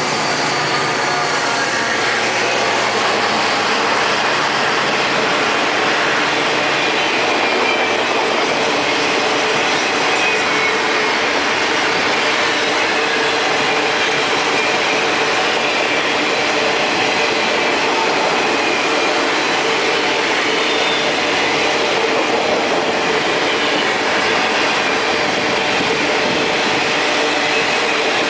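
A loaded freight train of open-top ballast hopper cars rolling past at speed, with a steady noise of steel wheels on rail. For the first few seconds a trailing diesel locomotive's engine is heard going by, then only the cars.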